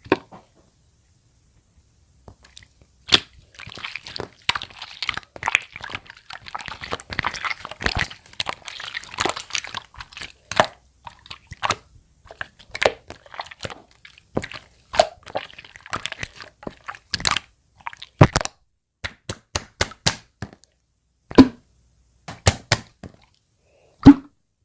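Close handling noises: a dense run of irregular clicks and crinkly crackles, thinning out after about ten seconds to scattered single clicks and taps.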